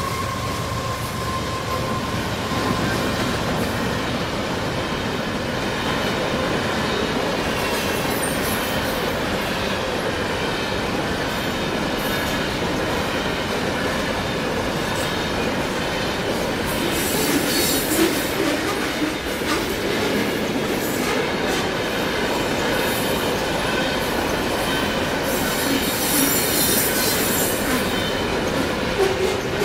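CSX manifest freight train passing a grade crossing: a steady rumble of covered hopper cars rolling by, with the locomotive horn fading out in the first couple of seconds. High-pitched wheel squeal flares up twice in the second half.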